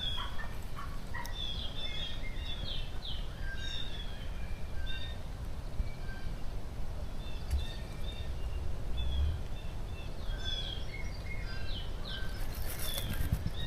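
Wild turkeys calling in the woods, many short repeated calls among other birdsong, over a steady low rumble of wind or handling noise on the microphone.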